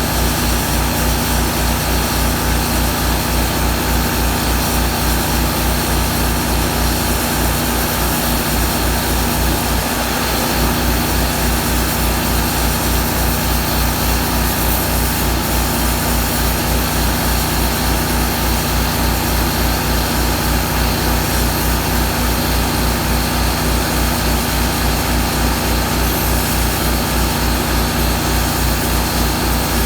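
Miller Trailblazer 325 engine-driven welder-generator running steadily, with a regular low pulsing beat.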